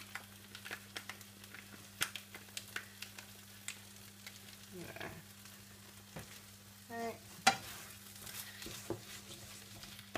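Chicken in tikka masala sauce sizzling in a non-stick frying pan turned down to low heat: scattered small pops and crackles over a low steady hum, with one sharper knock about seven and a half seconds in.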